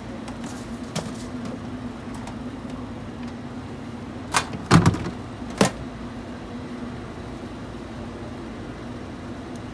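Steady hum of kitchen equipment, with a few sharp knocks and clacks between about four and six seconds in, the middle one loudest, as utensils are handled on the cutting board.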